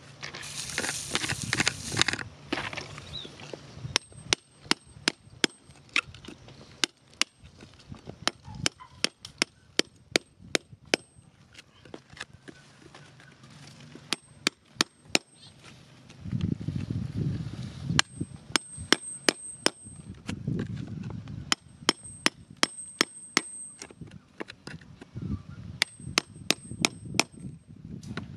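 Hand tool chipping into hard, stony soil to free a buried crystal: sharp irregular taps, a few a second in runs with short pauses, between stretches of scraping and crumbling soil. It opens with a brief crunchy scrape.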